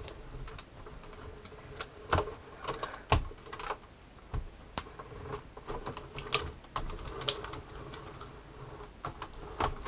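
Hand-cranked die-cutting machine being worked: irregular clicks and knocks as its cutting plates are fed through and its crank handle is turned.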